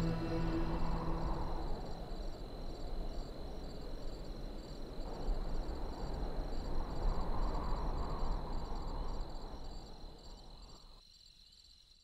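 Crickets chirping in a steady pulsing trill over a rushing background noise that swells and ebbs. A held low music tone dies away in the first second or two, and everything fades out near the end.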